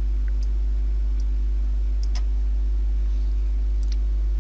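Steady low electrical hum, like mains hum on the recording, with a few faint, scattered short clicks.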